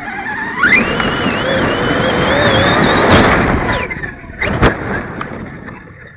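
Traxxas X-Maxx's 1600kv brushless motor on 8S whining as it is throttled up: the pitch rises sharply about a second in, holds high for a few seconds, then falls away. Two hard knocks about four and a half seconds in as the truck lands from a jump.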